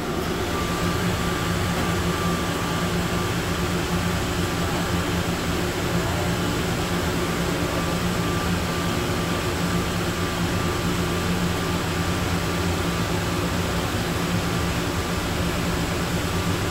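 Atlanta airport Plane Train, an automated rubber-tyred people mover, running through its tunnel, heard from inside the car. It makes a steady low hum and rumble with a steady high whine.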